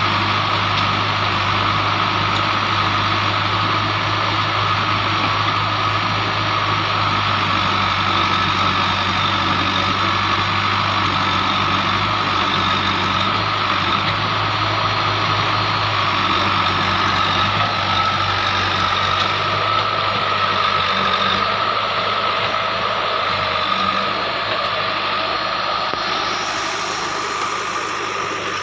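JCB 3DX backhoe loader's diesel engine running steadily under work, with a steady high whine over the engine drone.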